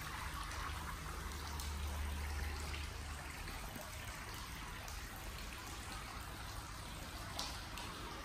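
Water trickling steadily, with a low hum underneath for the first three seconds.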